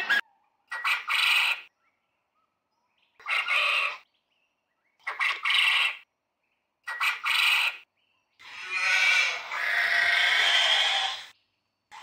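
Coturnix quail calling: four short, harsh calls about a second and a half apart, then one longer call lasting about three seconds.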